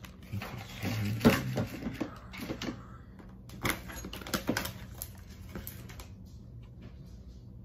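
Small clicks, taps and paper rustling from things being handled at a kitchen counter, in an irregular run that stops about six seconds in. A faint low hum runs underneath.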